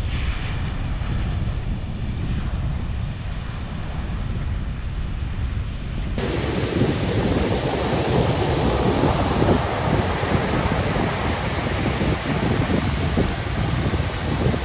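Wind buffeting the microphone over a low rumble of ocean surf. About six seconds in, the sound cuts abruptly to louder, fuller surf breaking and rushing, with wind still on the mic.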